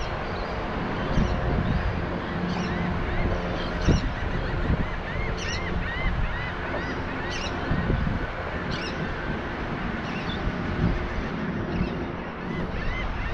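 Wind buffeting the microphone, with a series of short squeaky chirps that rise and fall in pitch, about two a second, in the middle and again near the end.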